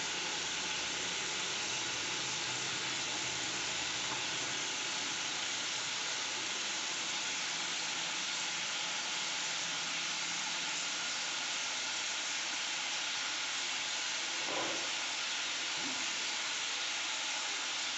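Steady, even hiss with no clear source, with one faint short knock about three quarters of the way through.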